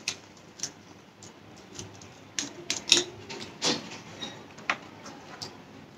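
Eating sounds: a run of light, irregular clicks and taps, the kind made by a utensil against food and takeaway containers and by chewing.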